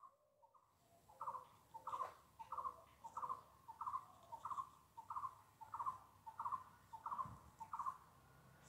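A bird calling faintly in the background: a short note repeated steadily, about a dozen times, roughly one every 0.6 s.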